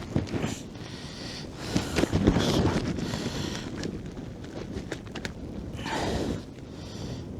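Wind buffeting the microphone in gusts, with rustling and small knocks of handling.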